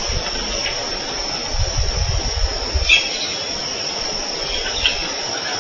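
A steady, high-pitched insect chorus at dusk, with a few short chirps over it and an uneven low rumble beneath.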